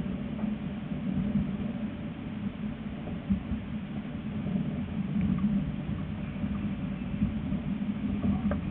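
Electric tram running along its track, heard from on board: a steady low rumble of wheels on rail with a constant low hum from the drive, and a few faint clicks near the end.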